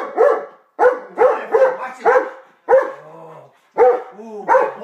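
German Shepherd barking repeatedly in quick runs of several barks, with short pauses between the runs.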